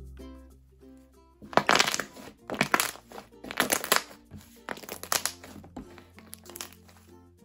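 Freshly activated blue white-glue slime being kneaded and squeezed by hand, giving irregular bursts of crackly, squishy pops from about a second and a half in. Light background music plays underneath.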